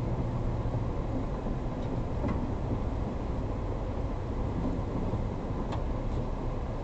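Steady low rumble inside the cab of a Ford Ranger Raptor rolling slowly down a gravel road: engine and tyres on loose gravel, with a couple of faint light ticks near the end.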